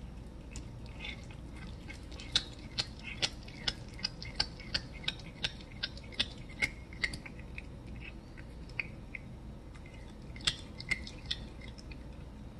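Cat chewing a raw chicken leg: sharp crunching clicks of teeth on bone and gristle, about two to three a second for around five seconds, then a few more near the end.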